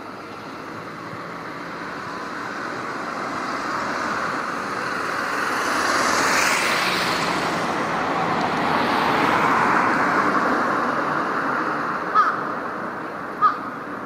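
Road traffic passing, a swell of vehicle noise that rises and fades twice. Near the end, two short calls from a jungle crow (large-billed crow).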